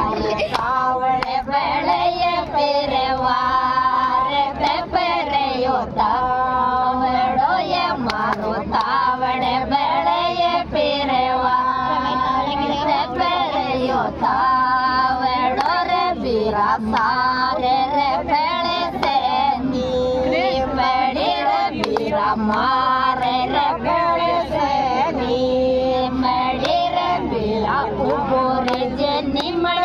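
A group of women singing a Rajasthani Mayra (bhat) folk song together in unison, with sharp hand claps keeping a steady beat.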